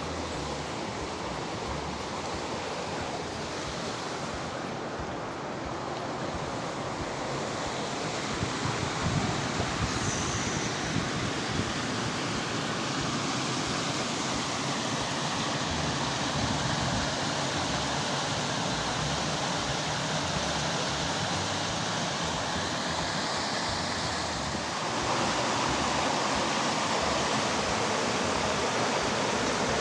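Shallow river rushing over rocks in small white-water rapids, a steady rushing that gets louder about 25 seconds in.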